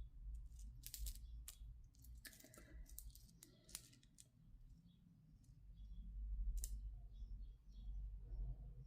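Faint, scattered clicks of silver and glass charm beads knocking together and sliding along a charm bracelet as the wrist moves, bunched in the first four seconds with a few more later.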